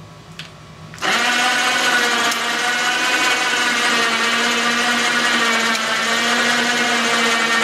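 Electric hoist motor running with a steady hum and whine, switched on suddenly about a second in.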